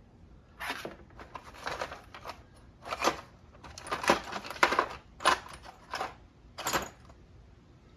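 Metal hand tools and sockets clattering and clinking together in irregular strikes while being rummaged through in search of a 10 mm deep socket.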